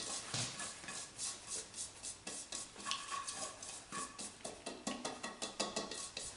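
Raw shrimp coated in tapioca starch tipped and shaken out of one bowl into a larger mixing bowl: a run of light clicks and taps, several a second, as the shrimp drop and the bowls knock together.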